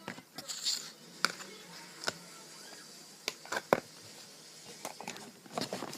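Clear slime being squished and stretched by hand, giving scattered sharp clicks and small wet pops, with a brief soft rustle in the first second.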